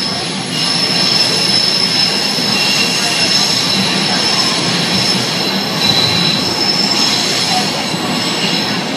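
Toronto subway train running through a tunnel, heard from inside the car: a steady loud rumble of wheels on rail, with high thin squealing tones from the wheels running through it.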